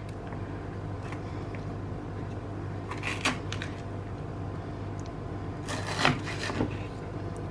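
Kitchen knife chopping Ferrero Rocher chocolates on a wooden cutting board: a few crunching knocks of the blade against the wood, two about three seconds in and two around six seconds, over a steady low hum.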